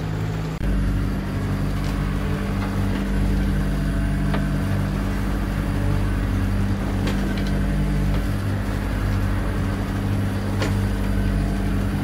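Motor-sailer's inboard engine running steadily under way, heard from inside the wheelhouse, over the rush of choppy water on the hull. There is a short break about half a second in.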